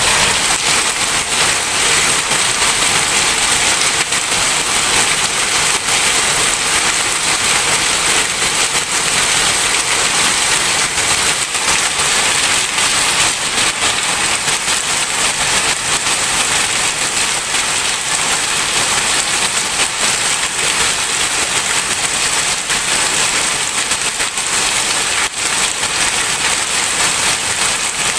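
Heavy rain falling steadily, a dense even hiss with many small drop impacts.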